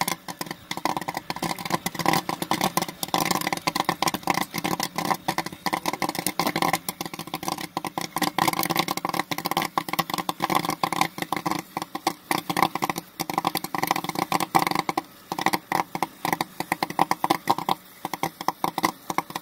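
Popcorn kernels popping in the steel kettle of a commercial popcorn machine: a dense, rapid crackle of pops, over a machine hum.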